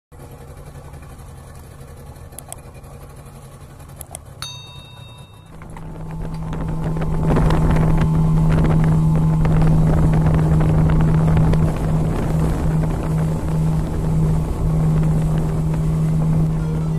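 Motorboat engine running at speed with water and wind rushing past, quieter at first and much louder from about six seconds in. A short high tone sounds about four and a half seconds in.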